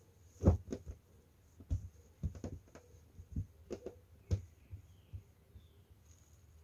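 Soft, irregular thumps and rustles of crocheted placemats being set down and smoothed flat by hand on a tabletop, about eight light knocks in all, the firmest near the start and about four seconds in.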